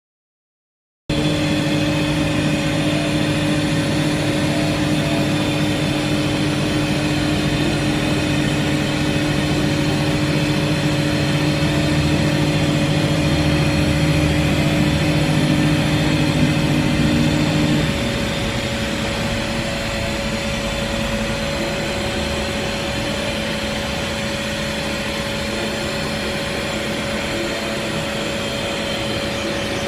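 Mazak VTC-20C CNC machining center running, a steady machine hum made of several constant tones. About 18 s in, the lower tones stop and the sound drops a little, leaving a steady whine over the hum.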